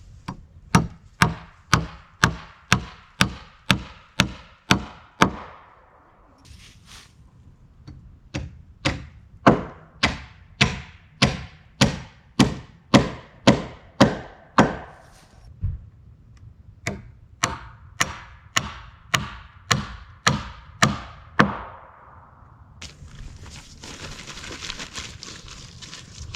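A hammer driving nails into wooden framing boards: three runs of steady blows, about two a second, with short pauses between nails. A steady hiss comes in near the end.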